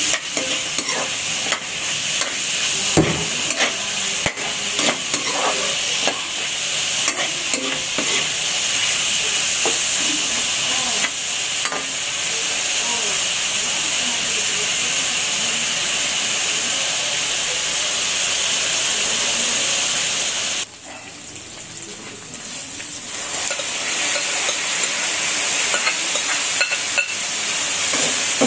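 Food sizzling as it is stir-fried in an aluminium wok, with a metal spatula scraping and knocking against the pan, the knocks thickest in the first half. About two-thirds of the way through, the sizzle drops away suddenly for a couple of seconds, then comes back.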